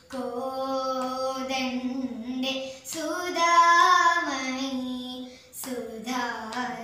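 Children's and women's voices singing together in unison, holding long drawn-out notes of a slow devotional chant. The highest and loudest phrase comes near the middle.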